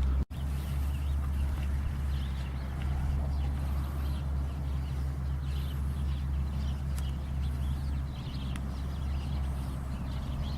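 Steady low hum with faint, irregular short clicks and chirps above it, broken by a brief cut to silence just after the start.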